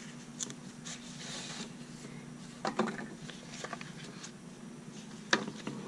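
Cardboard pen box being handled and opened with cotton-gloved hands: soft rustling, a brief sliding scrape and light clicks, with two sharper knocks, about three seconds in and near the end.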